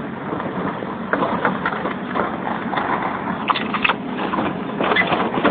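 Backhoe working: its diesel engine running steadily under many irregular knocks and clanks from the digging and pushing.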